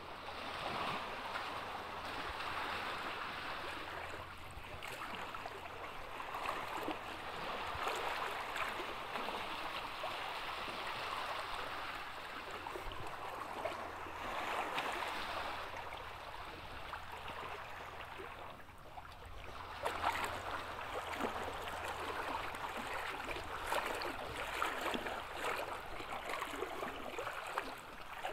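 Small waves lapping and washing against a rocky shoreline, a steady watery wash that swells and fades every few seconds.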